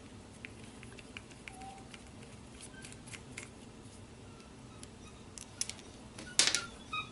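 Faint ticks and clicks of a hex driver turning out small screws from a plastic RC transmission case, with a louder clatter of tool and parts on the bench about six and a half seconds in. A dog whines faintly a few times, short high whimpers.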